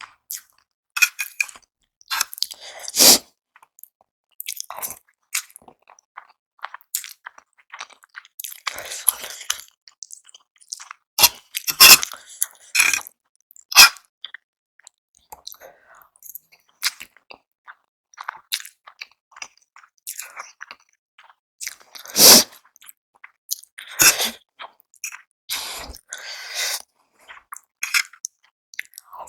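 Close-miked eating sounds from a meal of spicy Korean instant noodles and boiled eggs. Chewing and biting come in irregular bursts, with a few sharper, louder bites standing out.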